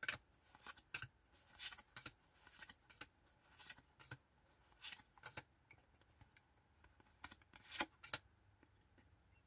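Faint, irregular papery flicks and rubs of Pokémon trading cards being slid one at a time from the front to the back of a stack held in the hand, with a couple of slightly louder flicks near the end.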